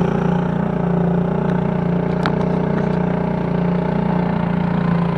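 An engine running steadily at an even speed, with a slightly pulsing low hum.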